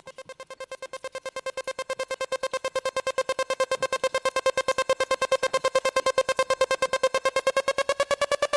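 Electronic background music: a single synth note pulsing about ten times a second, fading in and building in loudness, with a slight rise in pitch near the end.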